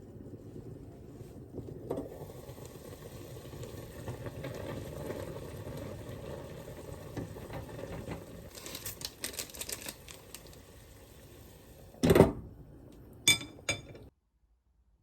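Kitchen cooking sounds: a steady low hiss of food cooking in a pan, with a clatter of utensils about nine seconds in. A loud knock comes about twelve seconds in, then two sharp clicks, and the sound cuts off abruptly near the end.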